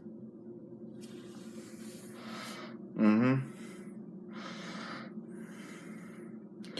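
A person breathing loudly close to the microphone in several long breathy swells, with one short loud voiced grunt about three seconds in, over a steady low hum.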